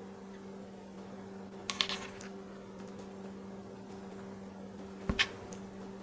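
A steady low electrical hum, with two short clusters of light clicks and taps, about two seconds in and again near the end.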